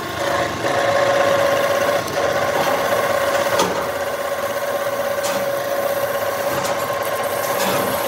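Drill press drilling through a steel part, the motor and spindle running with a steady whine while the twist drill cuts, and a few sharp ticks as chips break off.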